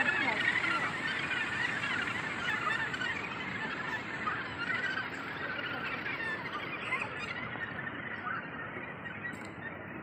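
Australasian gannet colony calling: a dense chorus of many overlapping short calls, growing gradually quieter toward the end.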